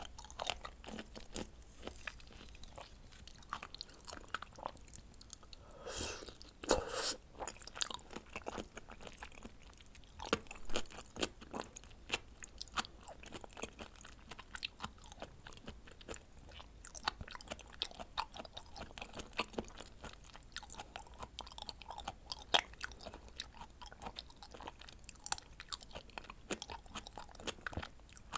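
Close-miked chewing of raw scallop and red shrimp sashimi: a steady run of small wet mouth clicks and smacks, with a louder burst of chewing about six to seven seconds in.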